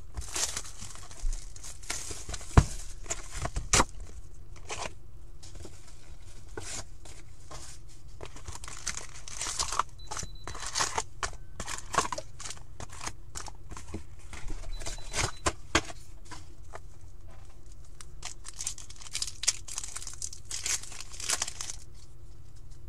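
A hobby box of 2021 Upper Deck Series One hockey card packs being torn open by hand, with the foil card packs crinkling and rustling as they are pulled out and handled. The tearing and crinkling come in several bursts.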